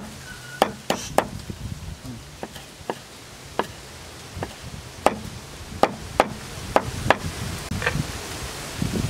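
Knife blade chopping spring onions on a round wooden chopping block: about a dozen sharp single knocks at an uneven pace, one or two a second.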